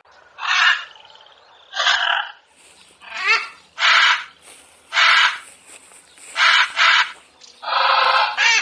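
A large bird's harsh, raspy calls, repeated about eight times at roughly one a second, some in quick pairs and the last one drawn out.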